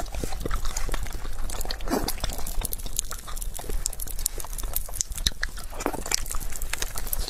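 Close-miked eating sounds: a person biting and chewing a fried egg, with many irregular small wet mouth clicks and smacks.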